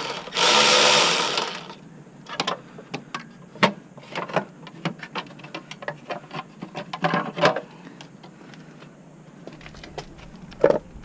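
A handheld power tool runs loudly in two bursts with a short break between them. After it stops, there are scattered clicks and clinks of hand tools and metal parts being handled.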